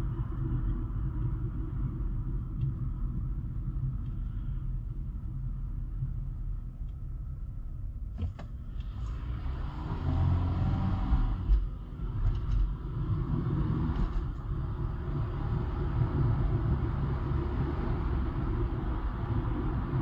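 A car driving on a highway, a steady low rumble of engine and tyres on the road. A few ticks come about eight seconds in, then the tyre hiss grows louder for several seconds before settling back.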